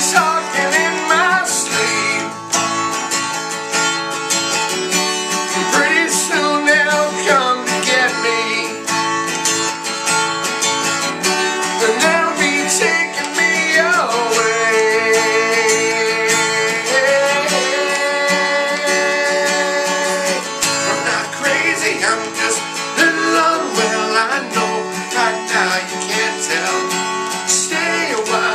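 Acoustic guitar music, with a melody over it that holds long, wavering notes, the longest about halfway through.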